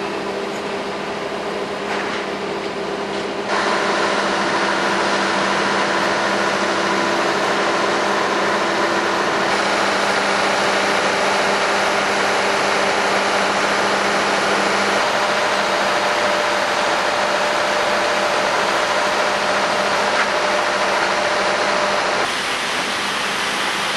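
An engine running at a steady speed, a constant drone with a few steady hum tones. The level steps up abruptly about three and a half seconds in, and the tone shifts slightly a few more times.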